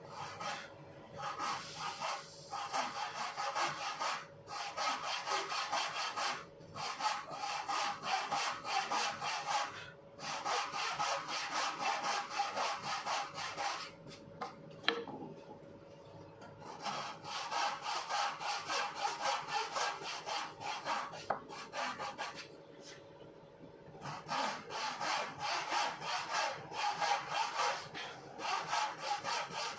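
A file sharpening the tooth tips of a bow-saw blade made from clock spring steel: quick scraping strokes that come in runs of several seconds with short pauses between them.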